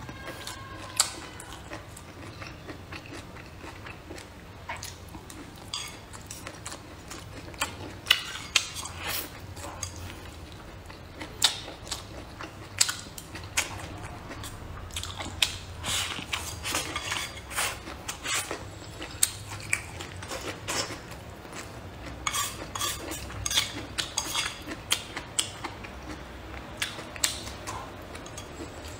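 Close-miked eating: many sharp clicks of chopsticks against a bowl, with chewing and biting in between.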